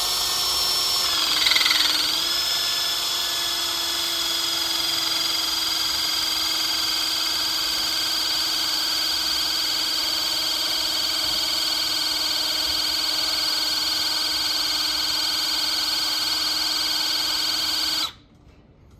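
Battery-powered hydraulic crimping tool (Ilsco Taskmaster crimper) running under load as it compresses a crimp sleeve onto cable, giving a steady, high-pitched motor whine. The pitch dips briefly about a second or two in, then holds, and the whine cuts off suddenly near the end.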